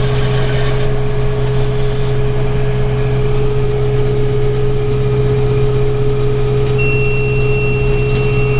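Tractor engine running steadily, driving a round baler through its net-wrap cycle as a bale is finished. Near the end a steady high-pitched electronic tone comes in and holds.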